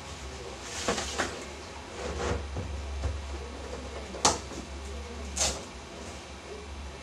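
A stick umbrella being unfurled, opened and handled: fabric rustling and the frame clicking, with the sharpest click a little after four seconds in and another scraping click about a second later. A steady low hum runs underneath.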